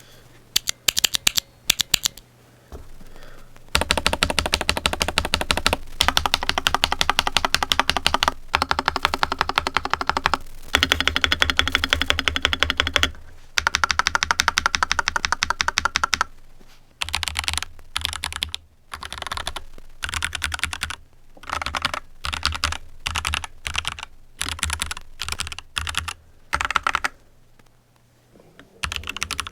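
Typing on a Royal Kludge RK61 Plus 60% mechanical keyboard: fast runs of keystroke clicks separated by short pauses, turning into shorter, more broken bursts about halfway through.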